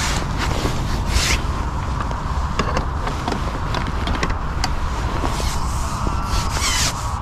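Rustling and scraping with scattered clicks, the sound of gear being handled, over a steady low rumble of wind on the microphone. A longer brushing sweep comes near the end.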